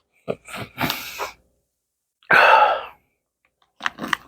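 A person sniffing close to the microphone to smell a snack. There are a few short sniffs and rustles in the first second, then one long, loud sniff a little after two seconds in.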